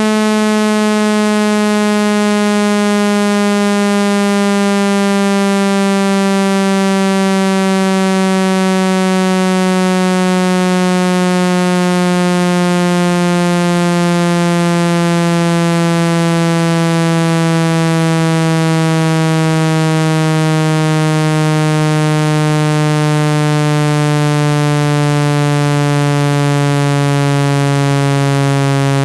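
Synthesized speaker-cleaning tone meant to vibrate water out of a phone speaker: a loud, buzzy low tone rich in overtones, gliding slowly and steadily down in pitch.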